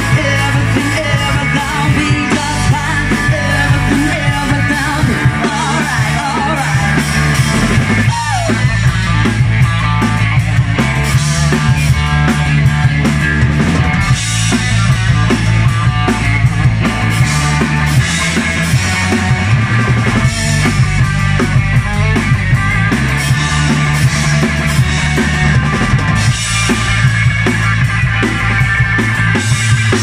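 Live rock band playing: bass guitar, electric guitar and drum kit, with a woman singing into a microphone.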